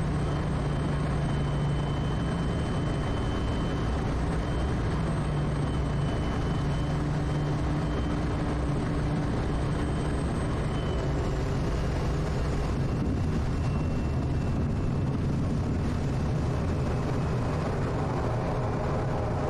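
Quest Kodiak's single PT6A turboprop engine and propeller running at reduced landing power, a steady low drone with hiss, through the final flare, touchdown and rollout on a grass strip.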